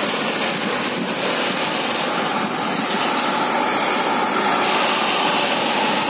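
Steam venting from industrial stacks, a steady loud rushing hiss, with a faint steady whine under it from about halfway through.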